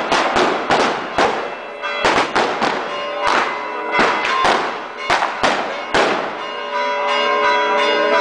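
Firecrackers going off in a rapid, irregular string of sharp bangs, about two a second, over church bells ringing for the Easter Resurrection. The bells come through most clearly near the end.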